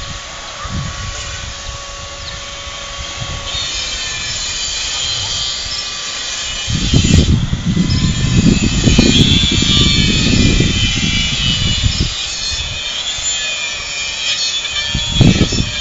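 Wind gusting on the microphone, strongest in the middle, over a faint steady engine drone from an airship passing overhead.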